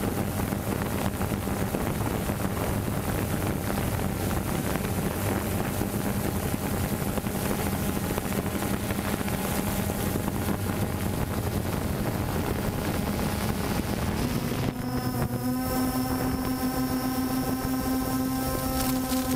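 Quadcopter drone's motors and propellers whirring steadily, with wind rushing over the microphone. About fourteen seconds in, the whine steps up in pitch as the rotors speed up.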